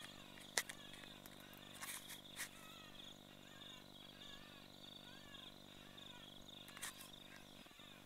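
Crickets chirping faintly in a steady pulsing trill, with fainter wavering chirps underneath. A sharp click about half a second in, with a few softer clicks around two seconds and again near seven seconds.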